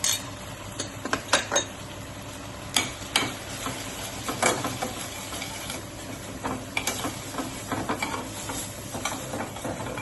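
Spoon stirring spices in a pan of hot ghee, with irregular clinks and scrapes against the pan over a faint sizzle.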